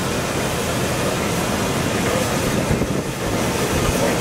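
Steam traction engine venting steam: a loud, steady hiss that dips briefly about three seconds in, with wind buffeting the microphone.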